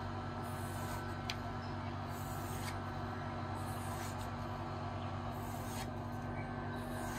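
Kukri blade being stropped on a wooden paddle strop: a soft swish with each stroke, about five strokes roughly every one and a half seconds, over a steady low hum.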